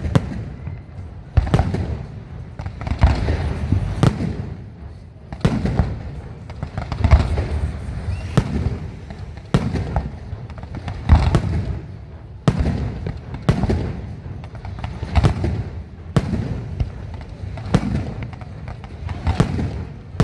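Fireworks display: aerial shells bursting one after another, about one loud bang every second or so, each followed by a low rumbling echo.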